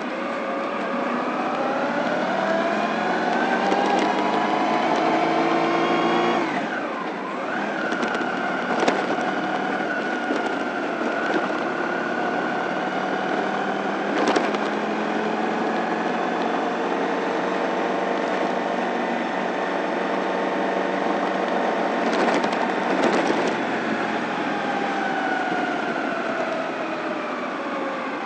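Honda ST1100 motorcycle's V4 engine running under way. Its pitch rises for about six seconds, drops sharply at a gear change, then holds steady while cruising and falls off near the end as the bike slows. A few short clicks or knocks come through.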